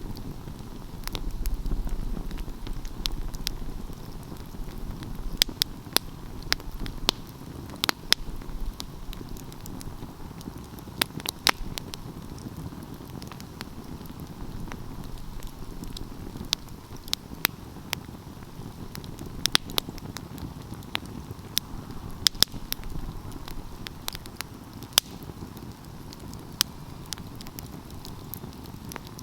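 Open wood fire burning, its flames making a steady low rustle with sharp crackles and pops at irregular intervals; a low rumble swells in the first few seconds.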